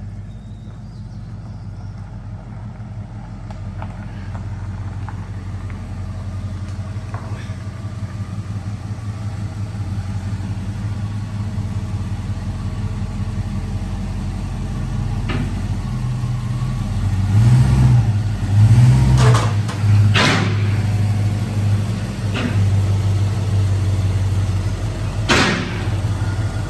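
Ford Mustang's engine running with a steady low rumble that slowly grows louder, with two stronger swells from revving about two thirds of the way through. A few sharp knocks, like a car door, come in the second half.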